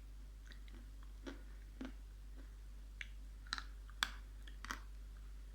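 Edible clay being eaten close to the microphone: about half a dozen faint, sharp mouth clicks and crunches, spaced irregularly, over a low steady hum.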